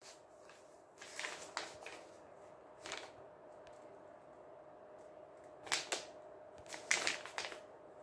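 Paper instruction leaflet rustling and crackling as it is unfolded and handled, in four short bursts over a faint steady hum.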